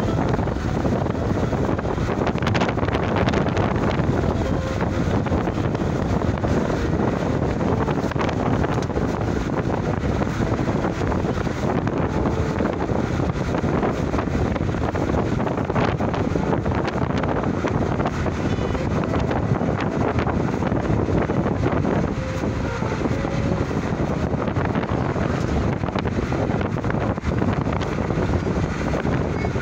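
Steady wind noise buffeting the microphone over the running noise of a moving vehicle.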